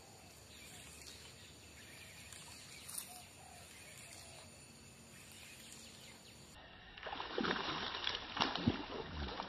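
A snakehead strikes a soft frog lure at the water's surface: about seven seconds in, a loud burst of splashing with several sharp slaps that lasts about two and a half seconds. Before it there is only a faint outdoor background.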